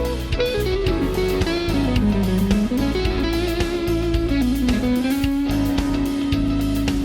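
PRS McCarty 594 electric guitar playing a lead line: a held note, then notes bent and slid down and back up, ending in a long sustained note about five seconds in. Steady low notes and faint regular ticks run underneath.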